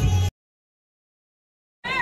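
Background music cuts off abruptly, followed by about a second and a half of dead silence from an edit, then a voice begins near the end.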